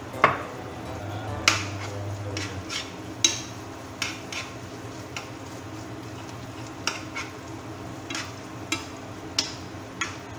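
Squid and onions frying in a nonstick pan with a steady low sizzle, while a metal spoon stirs them, clinking and scraping against the pan about a dozen times at irregular intervals.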